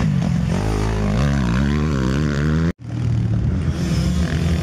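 Motocross bike engine revving up and down, its pitch rising and falling with the throttle as the bike rides the track. The sound drops out abruptly for a split second nearly three seconds in, then engine noise resumes.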